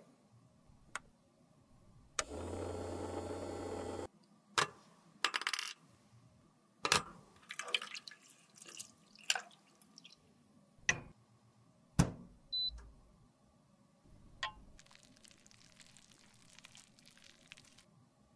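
Empty lipstick cases being washed: hard cases clicking and knocking against a tray, with splashes of water. About two seconds in, a steady machine buzz with a low hum runs for roughly two seconds.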